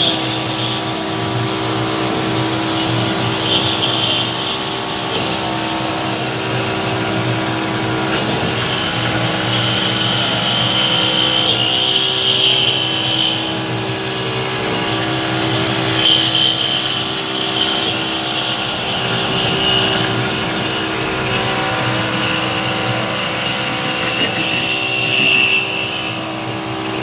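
Homemade CNC milling machine cutting under flood coolant: the spindle runs with a steady hum, and a high-pitched cutting whine swells and fades several times as the end mill works along the clamped workpiece.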